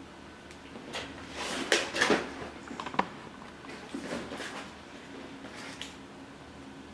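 Cardboard boxes being handled and shifted: a run of knocks and scuffs, the sharpest about two and three seconds in, fading to a few lighter ones.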